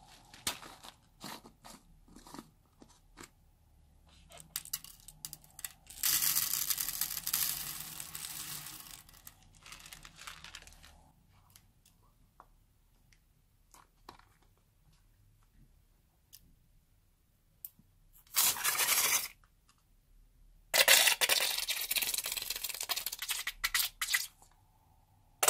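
Small decorative gravel ticking against its jar, then pouring in a hissing rattle for a few seconds into a glass dish. Later, a short burst and a longer loud noisy stretch as a slime-filled balloon is snipped with scissors and squeezed.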